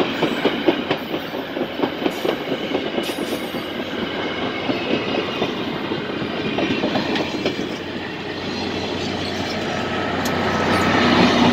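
Passenger railcars rolling past, their wheels clicking and clattering over the rail joints. Near the end, the rumble of a trailing diesel locomotive's engine grows louder as it comes up.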